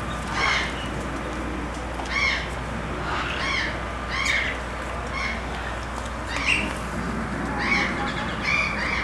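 A bird calling in short, repeated squawks, about one a second, over a steady low hum.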